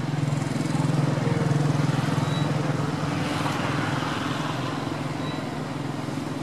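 Steady low hum of an engine running, swelling slightly about a second in.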